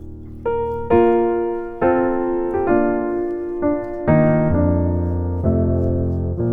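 Background piano music: slow chords and notes, each struck and left to fade.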